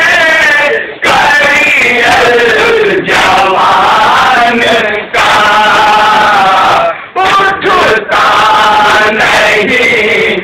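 Men chanting a nauha, a Shia mourning lament, loudly: a lead male voice in full cry with other men joining, in long sung lines with short breaks between them.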